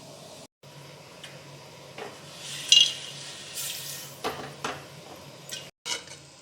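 Popcorn cooking in a pan: scattered sharp pops and clatters against the pan over a low steady hum, with a brief crackling burst a little before the middle.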